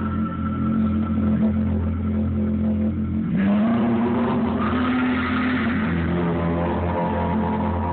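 Live electronic music with a steady, buzzing low drone. About three and a half seconds in, a brighter, fuller layer comes in, with a tone that bends slightly upward.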